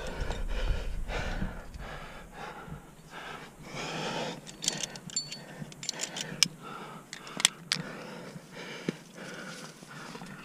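A rock climber breathing with effort, one breath after another, while climbing, with a few sharp clicks scattered through.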